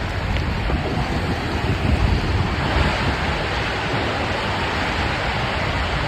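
Water rushing steadily under a round raft sliding down a water-park slide, with wind buffeting the microphone.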